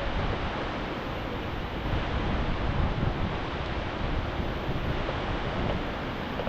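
Rain falling steadily in a thunderstorm, with wind buffeting the microphone.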